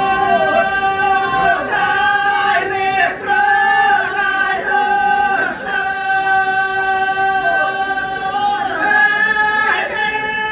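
Group of women singing a traditional folk song unaccompanied, in long held notes that slide between pitches over a steady low note.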